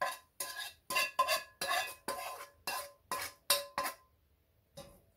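A utensil scrapes a metal frying pan in about ten quick strokes with a metallic ring, emptying fried chermoula into the chicken filling. The scraping stops about four seconds in, and one faint knock follows near the end.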